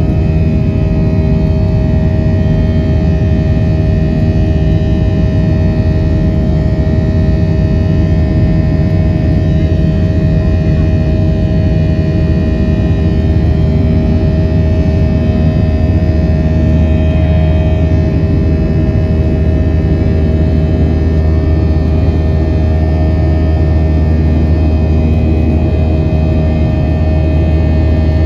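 Steady drone of an airliner's jet engines heard inside the passenger cabin during the climb after take-off: a deep hum with a few steady tones above it.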